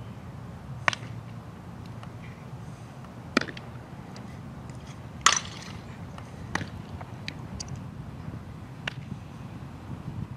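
Several sharp knocks from softball play, the loudest about five seconds in, over low steady outdoor background noise.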